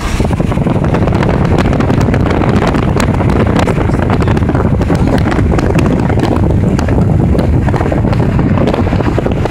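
Wind rushing and buffeting on the microphone at the open side window of a moving car, with crackling hits, over the steady rumble of the car on the road.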